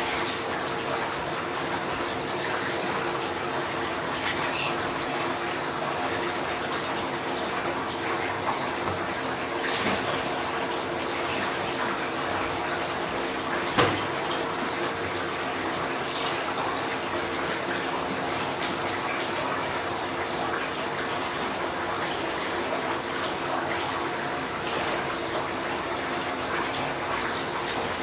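Small cement tabletop waterfall fountain running: thin streams of water trickle from a row of spouts and splash steadily into the basin, with a steady hum underneath. One brief click about fourteen seconds in.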